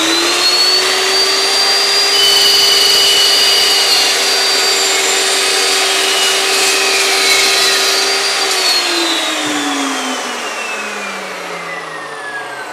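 Evolution S380CPS 15-inch dry-cut metal chop saw running at full speed with a steady whine as its carbide-tipped blade cuts through 1¼-inch aluminum angle. About eight seconds in the motor is released and the blade spins down, its pitch falling.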